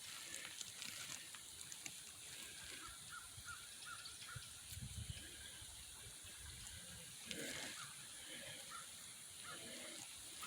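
Faint creek-side outdoor sound with water running, and a bird giving a quick series of short calls a few seconds in.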